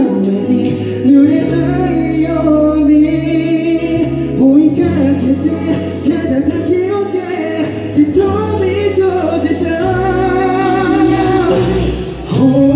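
A man singing a slow ballad live into a handheld microphone over a backing track, his held notes wavering with vibrato.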